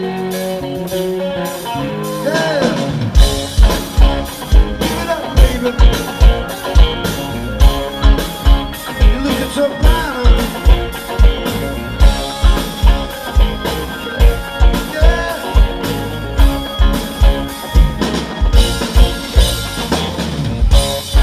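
Live rock band playing through a PA: electric guitars, bass and keyboard hold the music, and a drum kit comes in about three seconds in with a steady, heavy beat of about two hits a second.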